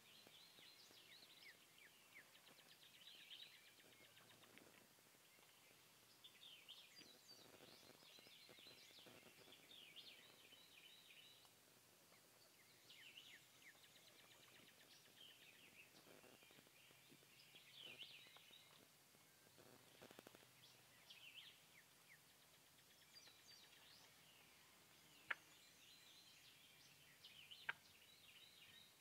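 Faint field ambience with short bursts of high chirping bird calls every few seconds, and two sharp clicks near the end.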